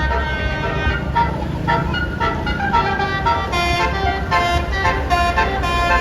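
Bus telolet horn, a Basuri multi-tone horn, playing a tune of held notes that change pitch every fraction of a second, over the low rumble of the bus's engine.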